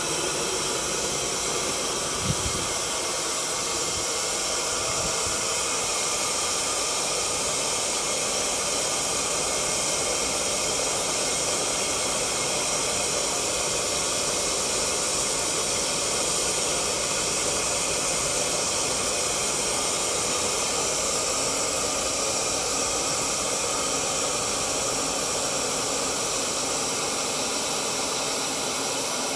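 Steady rushing hiss of a kiln at full firing: the sound of its burner flames. There is a single small knock about two seconds in.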